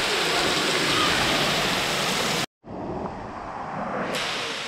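Steady rush of a waterfall pouring onto rock and into its plunge pool. About halfway through the sound cuts out for an instant, comes back quieter and duller, then brightens again near the end.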